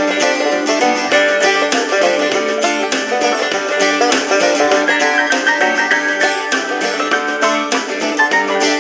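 Banjo-led plucked-string music playing as an MP3 track from the Prunus J-150 BTS radio's small built-in speaker, with no deep bass.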